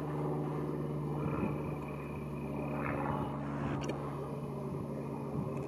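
Small single-engine propeller plane flying over, its engine a steady drone.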